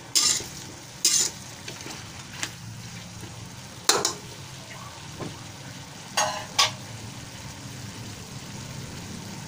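A utensil stirring chicken, carrots and potatoes in a metal wok, scraping and knocking against the pan a handful of times in the first seven seconds, the sharpest knock about four seconds in. A steady low sizzle of the pan's contents cooking runs underneath.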